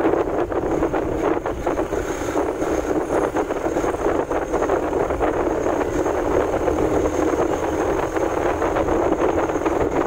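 Steady wind rushing over the microphone, mixed with the road and engine noise of a moving vehicle at speed. A thin high steady whine comes in about two seconds in.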